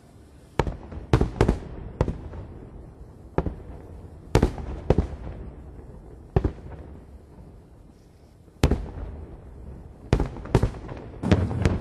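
Aerial firework shells bursting: about a dozen sharp booms at irregular intervals, some in quick pairs, each trailing off in a low rumble.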